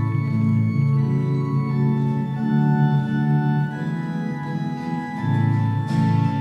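Organ playing a slow succession of held chords: the introduction to the sung Alleluia before the Gospel.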